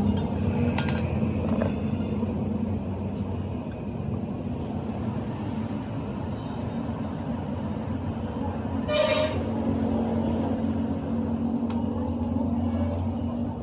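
Steady low rumble of motor vehicles, with a vehicle horn tooting.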